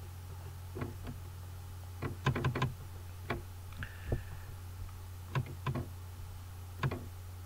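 Scattered sharp computer-mouse clicks and scroll-wheel ticks, with a quick run of several ticks about two seconds in, over a steady low electrical hum.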